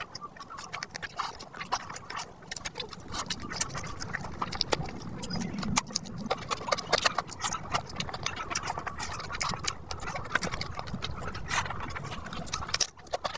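Close-miked eating sounds: chewing a mouthful of fish biryani, with many irregular wet mouth clicks and smacks. Fingers squish and rustle through the rice as more is picked up.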